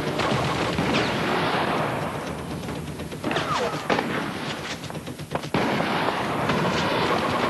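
Film-soundtrack gunfight: a rapid string of pistol shots, closely packed about three to five seconds in, over a constant loud wash of noise.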